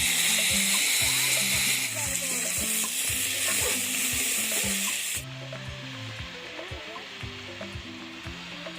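Food frying in hot oil: a loud sizzle that eases a little about two seconds in and cuts off suddenly about five seconds in, leaving a fainter sizzle. A simple melody with a steady beat plays underneath.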